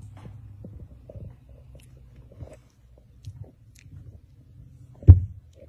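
Two puppies play-fighting, with low rumbling and soft biting and mouthing sounds as one chews at the other's neck. A sharp thump about five seconds in.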